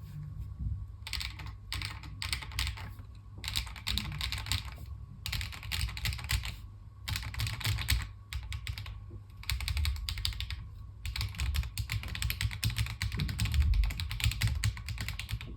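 Typing on a mechanical keyboard fitted with Ragna linear switches: a fast run of key strokes in quick bursts, broken by short pauses.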